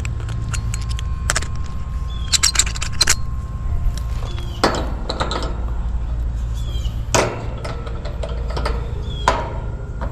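Metal clinks, clicks and clatters of hand tools and terminals as a heat pump's dual run capacitor is worked on, over a steady low hum. A thin steady whine sounds for the first few seconds.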